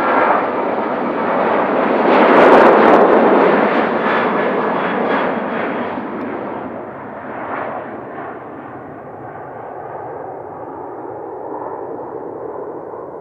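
Boeing 737-800 jet engines at takeoff power on the takeoff roll: a loud, rough jet noise that peaks about two to three seconds in as the airliner passes. It then fades and grows duller as the aircraft lifts off and climbs away.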